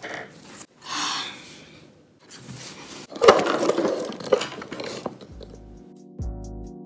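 Clattering and rustling of things being handled on a wooden table as the camera phone is moved, louder about three seconds in. About five seconds in, background music starts: sustained keyboard chords with a deep bass, changing about once a second over a ticking beat.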